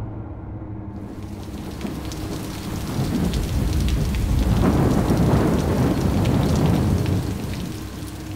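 Thunderstorm: steady rain starts about a second in, and a long rolling rumble of thunder builds from about three seconds, peaks in the middle and fades near the end.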